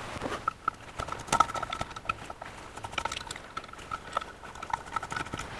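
Screwdriver working the screws of a Rochester four-jet carburetor's secondary venturi cluster: a run of light, irregular metallic clicks and small taps.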